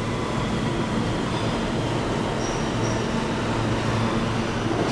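An R160 subway train pulling out of the station and running off into the tunnel: a steady rumble and wheel-on-rail noise with a low hum.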